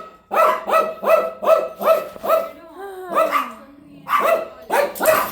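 Dog barking in quick repeated barks, about two to three a second. Past halfway the barking breaks off for a short falling whine, then starts again.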